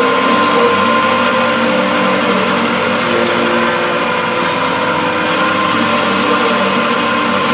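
CNC milling machine running steadily while cutting a gearbox part, with a steady high tone over a noisy mechanical hum.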